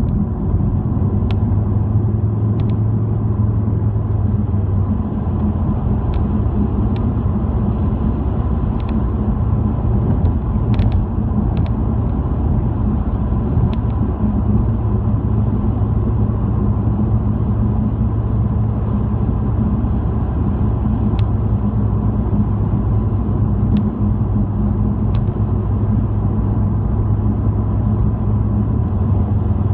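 Car driving at road speed, a steady low engine and tyre rumble heard from inside the cabin, with faint light ticks from road bumps now and then.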